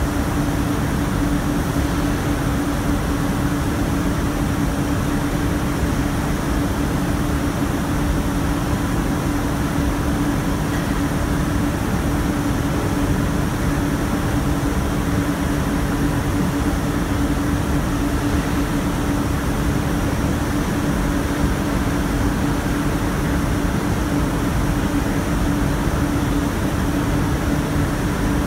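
Steady drone of heavy machinery in a steel wire-rod mill: an even rushing noise with a constant hum under it.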